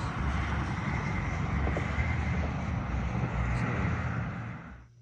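Steady loud outdoor rumble and hiss, fading out near the end.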